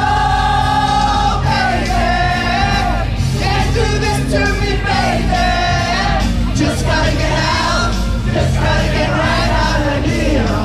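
Music with a singing voice carrying the melody over steady bass notes.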